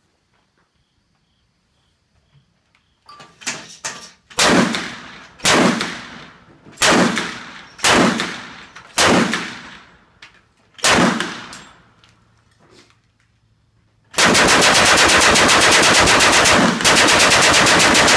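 Hand-cranked Gatling gun firing .45-70 Government rounds: after a few light clicks, six single shots about a second apart, each dying away briefly, then from about fourteen seconds in a rapid unbroken burst of fire.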